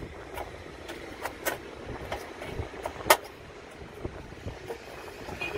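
Pliers clicking and knocking against the sheet-metal base plate of a sandwich toaster while bending back the metal clips that hold its tubular heating element. The sharp metallic clicks are scattered, and the loudest comes about three seconds in.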